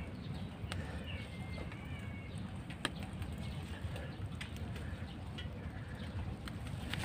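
Saluyot (jute mallow) leaves and stems rustling, with several sharp snaps as they are picked by hand, over a steady low rumble. A bird calls faintly about a second in.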